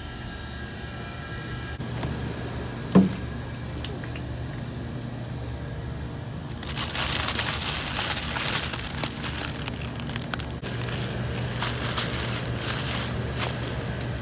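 Plastic packaging of a bag of frozen udon noodles crinkling as it is handled, starting about halfway through, over a steady low hum. A single sharp thump about three seconds in.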